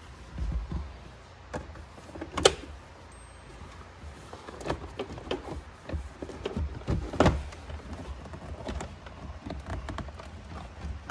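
A car's plastic center console being worked loose and lifted by hand: irregular clicks, knocks and rattles of trim. There is a sharp knock about two and a half seconds in and another a little after seven seconds.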